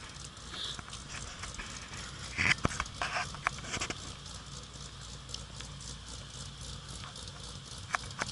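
A car rolling slowly across cracked pavement: irregular clicks and rattling knocks, loudest and busiest a couple of seconds in, over a low steady engine hum.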